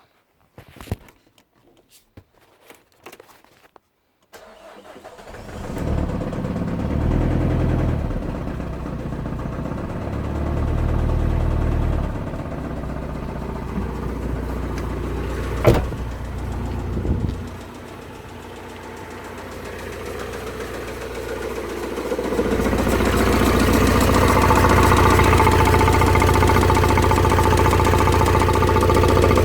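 A few light clicks, then a Vauxhall Vivaro's M9R 2.0 dCi diesel engine starts and runs, its revs rising and falling, dropping back, then held higher and steady for the last third. The engine has a bottom-end knock: its crankshaft bearings spun on the crank for lack of oil feed from a failing oil pump.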